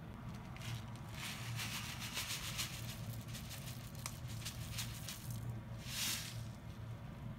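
Crinkling plastic bag as roasted white sesame seeds are shaken out of it into a pot of soup: a run of crisp rustles and small ticks, then a short louder rustle about six seconds in. A steady low hum runs underneath.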